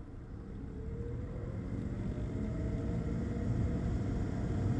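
Low rumble of a motor vehicle, growing steadily louder, with a faint whine that slowly rises in pitch.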